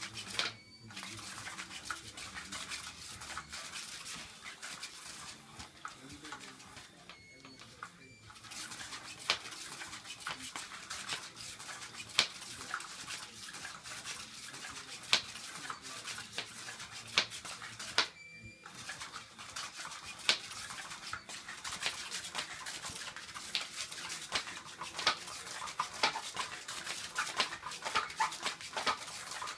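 Battery-powered Cat's Meow toy running: its motor whirs and the wand scrapes and ticks under the fabric cover. The sound stops briefly a few times.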